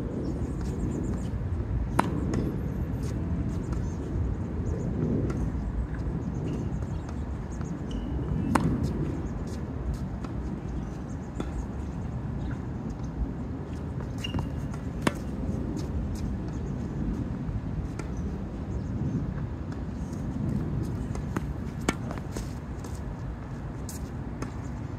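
Tennis balls fed by a ball machine struck with a racket: a sharp pop about every six and a half seconds, four in all, with fainter ball clicks between, over a steady low background rumble.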